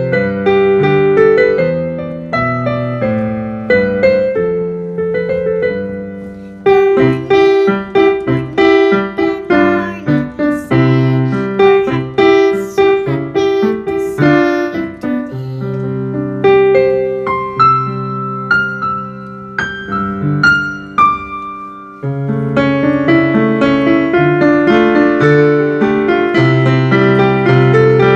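Solo piano music with no singing: a melody over chords, thinner and quieter in the middle and fuller and louder again about 22 seconds in.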